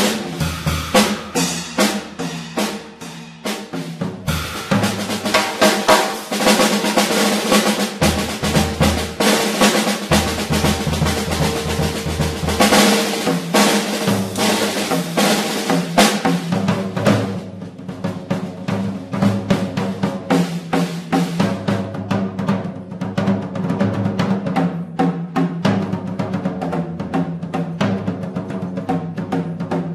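Drum set played as a busy, loud solo, with snare rolls, rimshots and bass drum, over double bass notes that change every few seconds. The drumming is densest in the middle and lighter in the last third.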